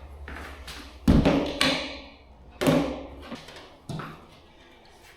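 Tools and materials being carried in and set down: three loud clunks with short ringing tails, about a second and a half apart, with lighter knocks between.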